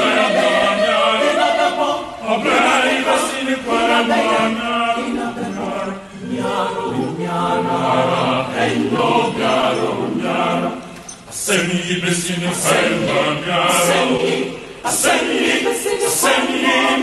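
Voices singing a chant-like song in phrases of a few seconds, with short breaks between phrases.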